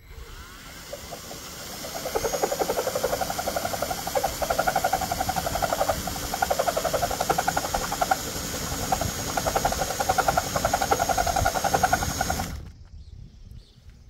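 Cordless DeWalt drill spinning a small bit down in a roof-rack bolt hole, grinding out leftover adhesive at the edge of the hole around the bolt. The grinding starts softly, grows louder over the first two seconds and goes on in uneven pulses as the bit bites. It stops about twelve and a half seconds in, and a single click follows near the end.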